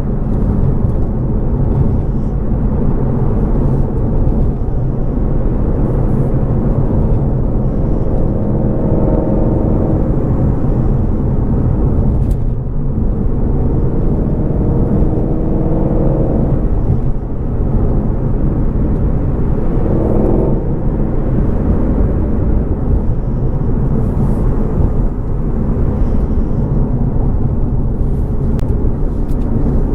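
Shelby GT350R's 5.2-litre flat-plane-crank V8 running steadily under way, its drone mixed with tyre and road noise.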